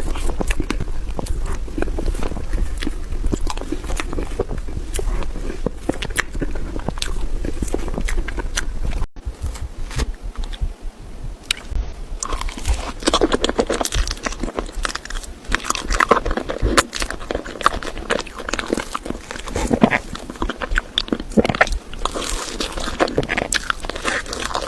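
Close-miked mukbang eating: biting and chewing, with many irregular sharp clicks from the food, denser and louder after a brief dropout about nine seconds in.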